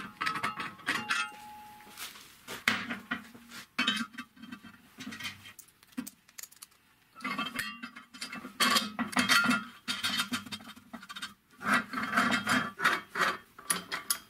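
Steel workshop parts clinking and knocking as they are handled and fitted together, in irregular clusters of short metallic clinks, some of them ringing briefly. Ratchet wrench clicks near the start, as a bolt is tightened.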